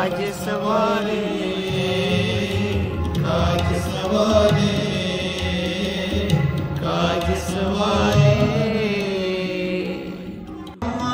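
Sikh devotional hymn singing (kirtan): a voice sings a chant-like melody over a steady held accompaniment, breaking off briefly near the end.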